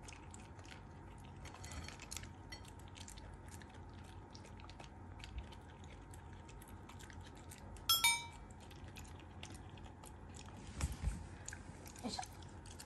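Black Shiba Inu chewing dry kibble from a hand, a long run of small crunches. About eight seconds in there is one sharp metallic clink with a brief ring.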